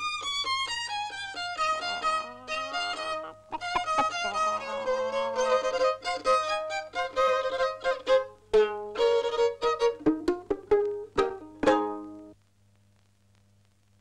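Violin playing a quick tune of many short notes, with some sharp accented strokes, which stops abruptly about twelve seconds in.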